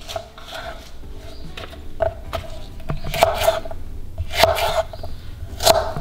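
A kitchen knife slicing a jalapeño into strips on a wooden cutting board: irregular short knocks of the blade against the board, a few of them louder.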